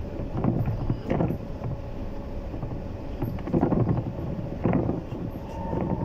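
Inside a Bogdan T90110 trolleybus on the move: the steady noise of the ride with the body rattling and knocking over the road surface a few times, under a faint steady electric whine. A higher steady tone comes in near the end as the trolleybus slows for a stop.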